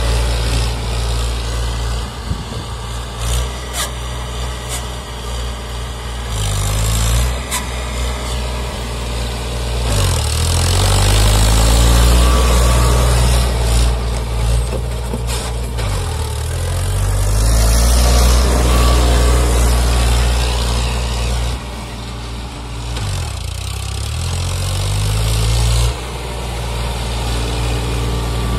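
Eicher 557 tractor's diesel engine running under load while it pulls a 7-foot rotavator through the soil in low gear. The engine note dips and recovers about three times.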